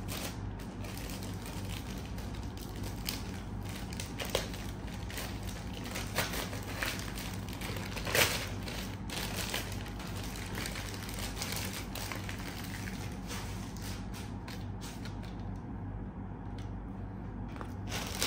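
Plastic courier mailer bag crinkling and rustling as it is handled and torn open, with scattered crackles, the loudest about eight seconds in. A steady low hum runs underneath.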